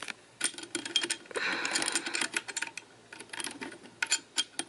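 Small metallic clicks and rattles of a steel pipe clamp being handled and fitted around a metal IV pole, with a short scraping rustle about a second and a half in.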